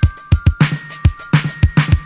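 Instrumental old-school electronic funk beat. A drum machine plays a deep kick and sharp claps in a steady, fast rhythm under short, high synth notes.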